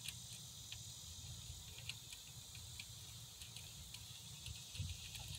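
Faint steady high-pitched chirring of insects such as crickets, with scattered small clicks and taps from a hand fitting a 10 mm nut or bolt on the alternator.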